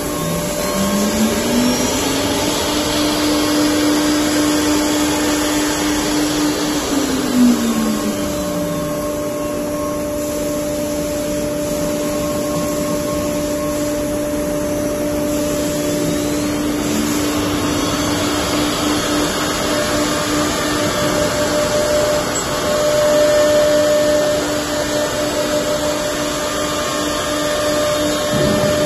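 HT-R3 three-spindle CNC nesting router running, its spindle motors giving a steady whine over the rushing noise of cutting and dust extraction as it routes a door-panel pattern into a wood board. About a second in, a second spindle spins up to speed with a rising whine. Around seven seconds in, one spins down with a falling whine.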